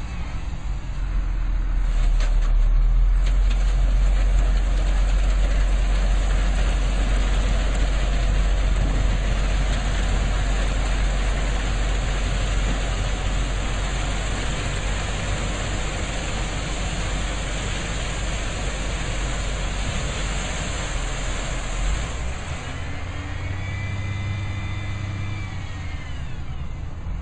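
Cotton module truck's engine running steadily as it unloads round cotton modules off its back, with a deep rumble that grows louder about two seconds in. Near the end it quietens and a whine rises and falls.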